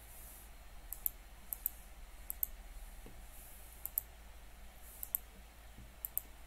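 Clicks of a computer mouse button, mostly in quick pairs like double-clicks, about six pairs roughly a second apart, over a faint steady hiss.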